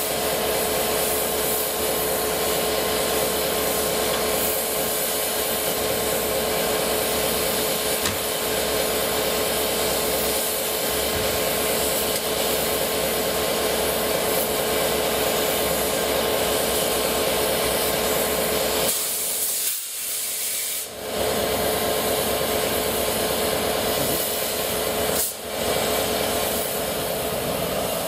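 Steady hiss of steam escaping from the standing Peppercorn A1 Pacific 'Tornado', with a steady hum under it; the sound briefly drops away twice about two-thirds of the way through.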